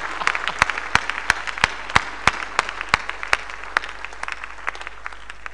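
Congregation applauding: a haze of many hands with single sharp claps standing out, slowly dying away.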